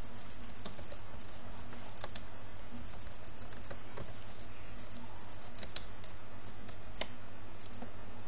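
Typing on a computer keyboard: irregular key clicks, a few a second with pauses, over a steady low hum.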